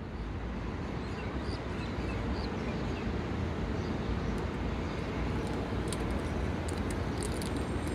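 Steady outdoor background noise with a low rumble, with a few faint high chirps in the first few seconds and some light clicks in the second half.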